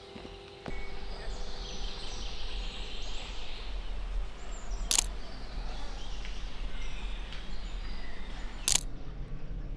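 Two sharp shutter clicks from a Pentax PC35AF compact film camera, about 5 s in and again about 3.5 s later. Behind them is forest ambience with a low wind rumble and faint birdsong.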